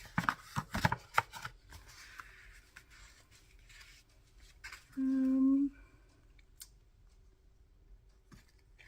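Scissors snipping paper several times in quick succession in the first second or so. About five seconds in comes a short, steady hummed 'mm' from a woman's voice, the loudest sound.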